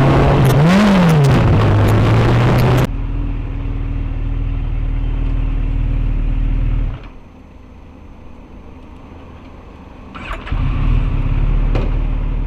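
Yamaha XJR1200's air-cooled inline-four engine idling, blipped once about a second in with a quick rise and fall in pitch. The sound changes abruptly between short engine clips and is quieter for a few seconds in the middle.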